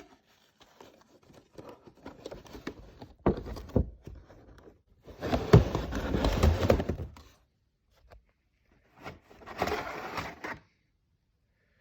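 Packaging being handled as a boxed diecast model car is pulled out of its cardboard box: scraping, rustling and light thunks, with two louder stretches of rustling about halfway through and near the end.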